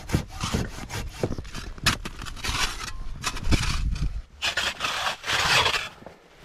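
Rough scraping and brushing of snow as a person in snow clothes crawls through an igloo's snow entrance tunnel, coming in several bouts about a second long.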